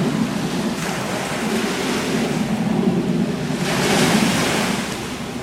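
Ocean surf washing steadily, with a wave surging in about four seconds in and wind buffeting the microphone.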